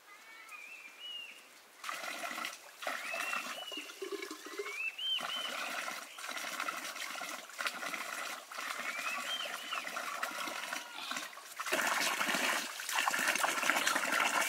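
A bird gives several rising, hooked whistled calls over a loud splashing, hissing noise that starts and stops several times and is loudest near the end.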